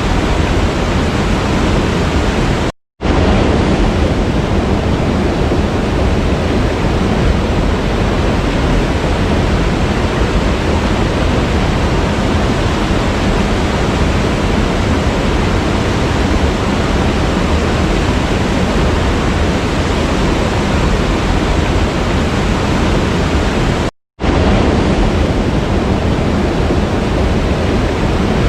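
Waterfall water rushing in a steady, dense roar. The sound cuts out completely for a split second twice: about three seconds in and again near the end.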